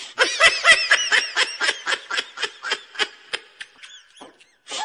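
High-pitched, rapid giggling laughter in quick ha-ha-ha pulses, about four to five a second. It breaks off briefly near the end and starts again.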